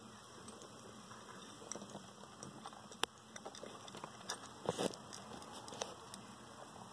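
Land hermit crabs scrabbling around a seashell food dish: faint scratching with scattered small clicks of shells and legs knocking on shell, a sharper click about three seconds in and a short cluster of knocks near five seconds.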